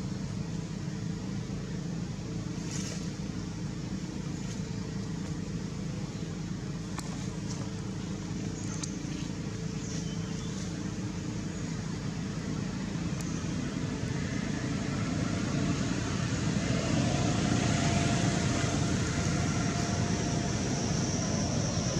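An engine running steadily, getting louder about two-thirds of the way through, with a few faint clicks.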